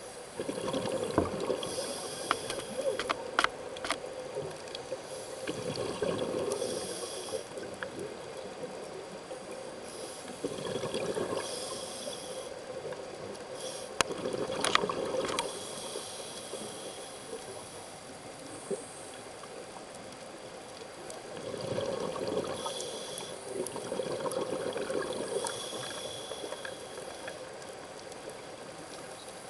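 Scuba diver's regulator breathing heard underwater: bubbly exhalations in bursts a few seconds apart, with hissing inhalations between them and a few sharp clicks.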